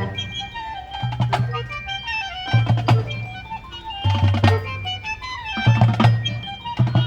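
High school marching band playing: a pitched melody line over low held notes that come back about every one and a half seconds, with percussion strikes.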